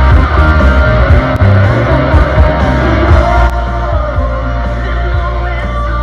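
Loud rock music with singing, playing steadily.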